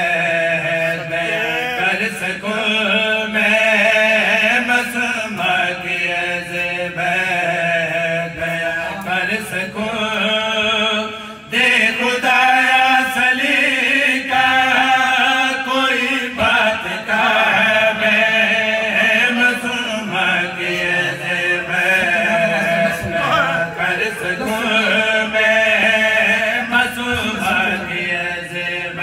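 Man chanting a devotional Urdu qaseeda into a microphone in long melodic phrases with held, wavering notes. The voice breaks off briefly about eleven seconds in, then resumes.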